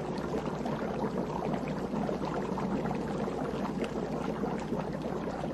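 Steady bubbling, gurgling water with a constant scatter of small pops and crackles.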